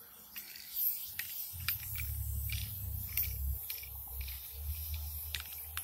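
Aerosol spray-paint can being handled, with irregular metallic clicks and rattles, about two or three a second. A low rumble comes in about one and a half seconds in.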